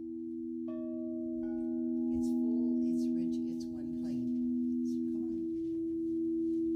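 Quartz crystal singing bowls ringing in steady, pure, held tones, with higher tones joining about a second and a second and a half in. The whole sound gradually grows louder.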